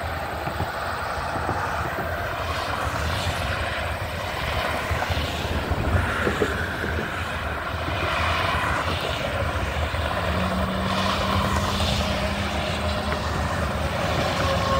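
Freeway traffic passing, vehicle after vehicle, the tyre and engine noise swelling and fading with each pass-by over a steady road hum; a low steady drone joins about ten seconds in for a few seconds.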